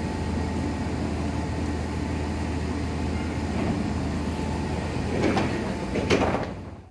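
Monorail train standing at the platform with a steady hum from its equipment, its doors sliding open, then a few sharp knocks near the end as someone steps aboard.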